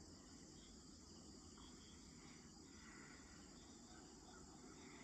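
Faint, steady chorus of crickets, a continuous high trill, over a low background rumble.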